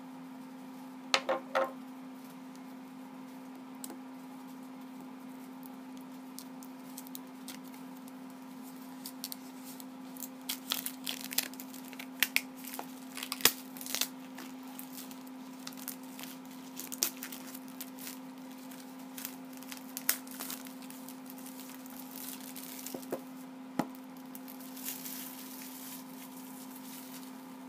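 Clear plastic shrink wrap on an iPhone 6 box being torn along its pull strip and peeled off: sharp snaps about a second in, then crinkling and crackling in scattered bursts, busiest in the middle. A steady low hum runs underneath.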